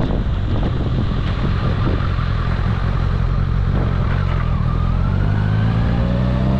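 Kawasaki ZRX1100 inline-four motorcycle engine running at low revs while rolling slowly through a turn, the revs starting to rise near the end as it pulls away.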